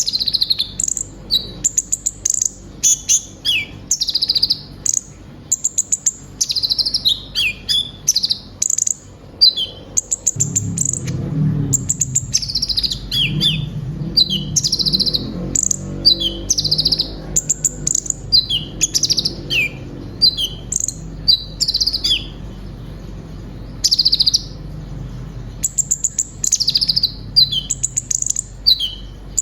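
Konin (kolibri ninja) sunbird singing vigorously: a fast, unbroken run of high chirps, short trills and quick down-slurred notes, mixed with phrases mimicked from other birds. A low background rumble comes in about a third of the way through.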